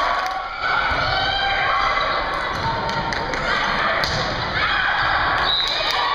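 Many voices of a crowd shouting and cheering in a gymnasium during a volleyball rally, with a few sharp thuds of the volleyball being struck.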